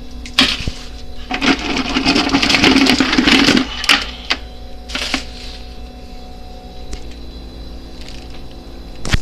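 Live blue crabs clicking and scraping against one another and their container: a dense clatter of hard shell-on-shell clicks for about the first three and a half seconds, then scattered single clicks, with one sharp click at the very end.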